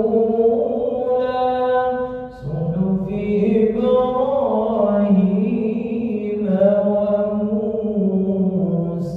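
A male imam chanting Quran recitation in long, held, melodic phrases, with a short break for breath about two and a half seconds in.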